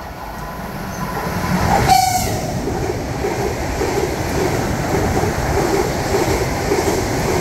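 ES1P Lastochka electric multiple unit passing at speed. A rising rush as it approaches peaks as the front goes by about two seconds in. A steady rush follows, with a regular clatter of wheels over the rails, about two beats a second, as the carriages stream past.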